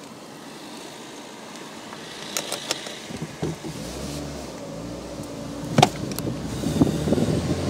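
Peugeot 206 engine heard from inside the cabin, quiet at first, then louder from about four seconds in as the car pulls away through the roundabout. A few sharp clicks come through, the loudest about six seconds in.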